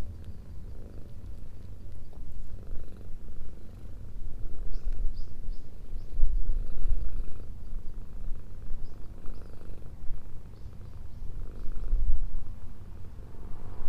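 A cat purring deeply while being stroked, close to the microphone; the rumble swells and fades with each breath.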